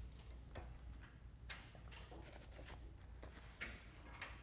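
A few faint metallic clicks and light taps as hands pull the mounting pins and clips from the air shocks of a car wash over/under conveyor, the clearest about three and a half seconds in, over a low steady hum.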